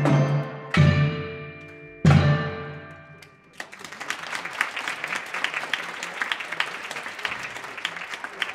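Marching percussion ensemble of mallet keyboards and drums striking two final chords a little over a second apart, each ringing out and fading. About a second and a half later an audience starts applauding and keeps clapping.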